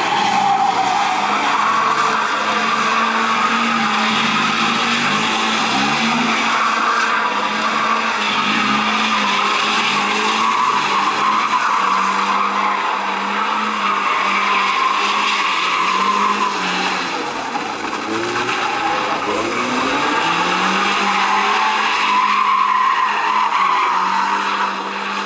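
BMW E36 3 Series sedan doing donuts: tyres squealing without a break as they spin on the asphalt, over the engine held at high revs that rise and fall as the car swings round.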